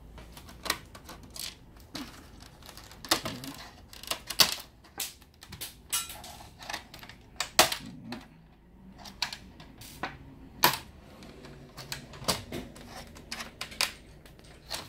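Plastic back cover of a Lenovo C40-05 all-in-one PC being pried off with a screwdriver and fingers: irregular sharp clicks and snaps of plastic, some loud.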